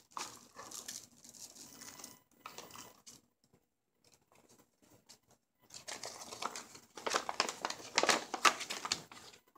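Paper rustling and crinkling as instruction cards and a folded paper user manual are handled and unfolded. It is faint at first, briefly near silent a few seconds in, then louder, dense crackling for the last three seconds or so.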